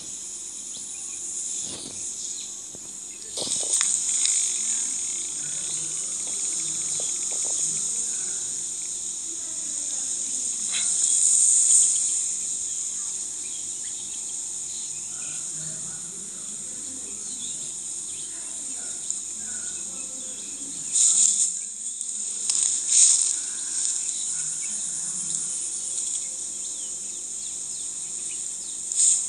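Insects chirring steadily in a high-pitched, unbroken chorus, swelling louder a few times.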